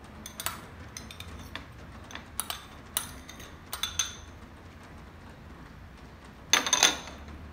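A metal spoon scraping and tapping against a small ceramic bowl as chopped onion and coriander are knocked out of it, giving scattered light clinks. Near the end comes a louder, quick cluster of clinks as the spoon and bowls knock together.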